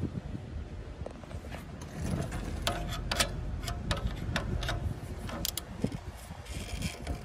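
Hand wrench working the nut on a sway bar end link: a run of light metallic clicks, about three or four a second, bunched in the middle.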